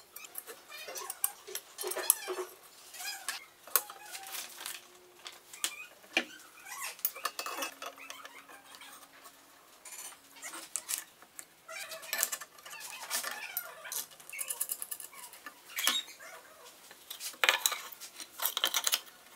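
Irregular metal clinks, clicks and knocks as the aluminium extrusion frame and gantry of a Sculpfun S10 laser engraver are handled and screwed together with a hex key.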